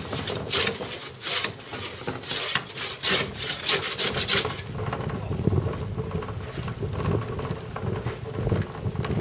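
Repeated rough rasping scrapes that stop about four and a half seconds in. They are followed by a low rumbling crunch of wheels on gravel as a wheelie bin is wheeled across the yard.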